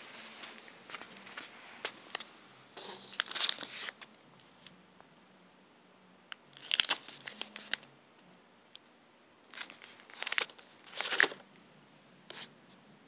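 Close handling noise: scattered sharp clicks and several short bursts of rustling and crinkling, as of paper or plastic being touched near the microphone.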